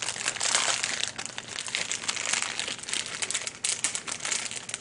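Clear plastic packaging of a pair of 3D glasses crinkling and crackling continuously as hands work at opening it.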